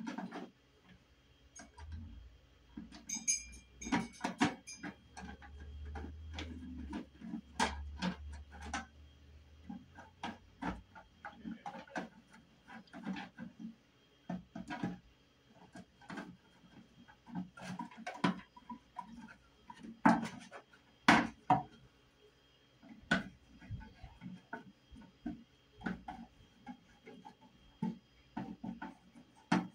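A screwdriver driving the screws of an electrical outlet cover plate, with irregular small clicks and scrapes of metal on the plate, and a few louder clicks about twenty seconds in.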